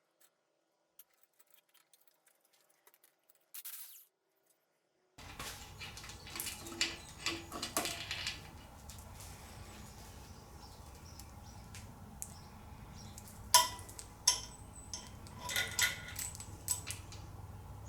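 Hand tools and small metal engine parts clinking and clicking during engine teardown work. The first few seconds are nearly silent apart from a few tiny ticks. About five seconds in a steady low hum comes up under scattered sharp metal clicks, the loudest just past halfway.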